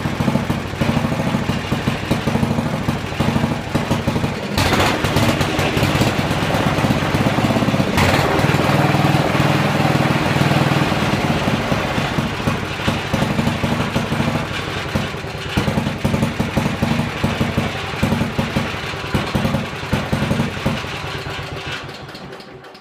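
Briggs & Stratton model 23D single-cylinder engine running on its freshly cleaned carburetor. It speeds up about five seconds in, runs harder for several seconds, then settles back, and it winds down near the end. It holds speed without surging, though the idle still needs fine tuning.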